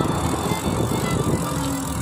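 Wind and road noise from riding a bicycle along a highway, with the rush of a car that has just passed slowly dying away.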